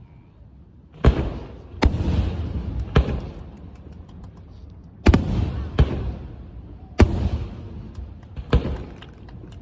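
Fireworks bursting overhead: seven sharp bangs at uneven intervals, each trailing off in a rumbling echo.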